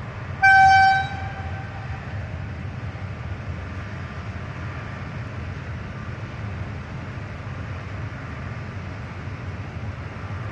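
A freight train's horn sounds one short, loud blast about half a second in, over the steady low rumble of the train.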